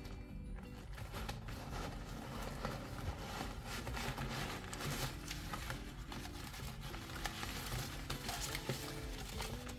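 Packaging being crinkled and torn open by hand: a dense run of rustling and crackling with many small sharp clicks.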